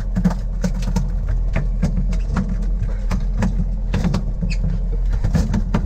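Fishing boat's engine running with a steady low rumble, overlaid by frequent short knocks and clicks.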